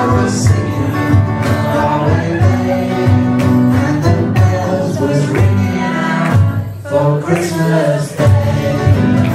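Live band playing a song: singing over electric guitars, with a steady beat. The music drops back briefly about seven seconds in.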